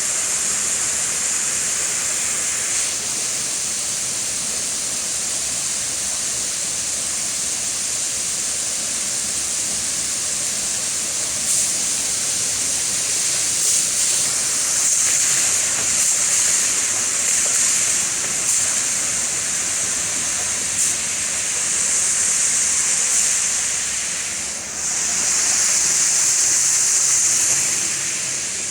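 Steady hissing rush of water in a water-treatment clarifier/filter tank. It grows a little louder partway through and dips briefly near the end.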